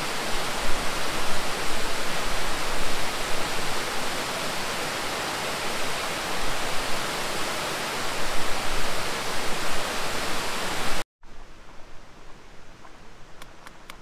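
Waterfall: a steady, loud rush of falling water that cuts off suddenly about eleven seconds in, leaving a much quieter background with a few faint clicks near the end.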